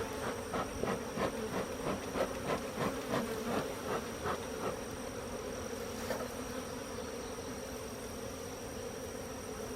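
Swarm of honeybees buzzing steadily around an opened hive. Over the first half there is a run of soft, evenly spaced ticks, about three a second, that then fade out.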